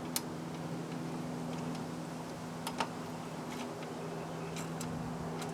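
A few scattered light metallic clicks as hand tools work a thread-cutting bolt into a mounting hole, over a steady low hum. The sharpest click comes just after the start and another about two and three-quarter seconds in.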